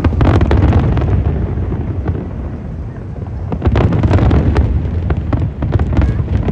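Aerial fireworks shells bursting in rapid succession: deep booms run together into a rumble, with many sharp cracks and crackles on top. The barrage eases briefly about halfway, then comes back just as dense.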